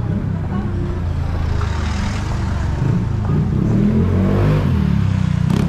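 A car's engine running close by as the vehicle drives past, its pitch shifting as it goes by about four seconds in. A sharp click near the end.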